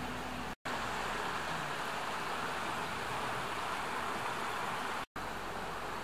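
Steady rushing outdoor ambience, an even hiss with no distinct events, that drops to silence for a split second twice, about half a second in and near the end.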